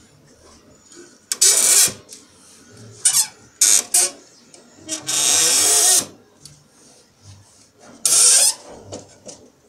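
Wooden parts of a pigeon nest box scraping and rubbing as they are handled and slid in and out, in about five short rasps, the longest about a second.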